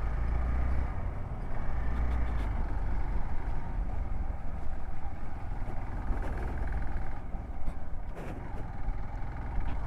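Hero XPulse 200's single-cylinder engine running steadily while the motorcycle is ridden, a low rumble with road noise under it.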